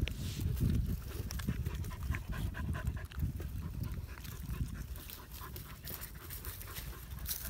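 Dog panting and sniffing close to the ground: quick, short breaths over a low rumble.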